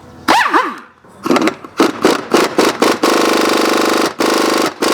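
Impact wrench blipped in short bursts, then hammering steadily from about three seconds in, with two brief pauses near the end, working on a stripped, seized lug nut.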